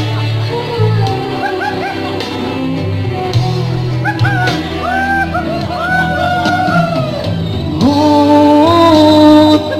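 A man singing karaoke into a microphone over a backing track, in wavering, ornamented phrases. Near the end he holds a loud, long note.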